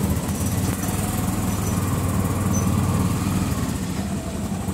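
A steady, low mechanical hum of a running engine.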